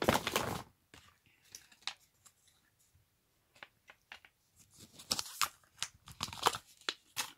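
Cosmetic packaging handled close to the microphone: a burst of rustling at the start, then scattered crinkles, clicks and taps that get busier about five seconds in.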